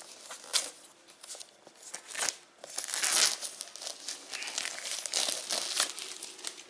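Clear plastic shrink-wrap crinkling and tearing as it is peeled off a steelbook disc case, in irregular bursts, loudest about three seconds in.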